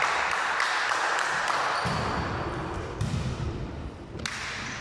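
A volleyball struck with a single sharp smack about four seconds in, over the echoing background noise of a gym during play.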